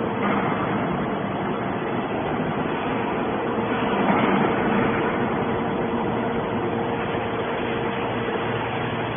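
Enerpat 100-ton hydraulic metal baler running: steady motor and hydraulic pump noise with a constant hum, growing louder for a moment about four seconds in.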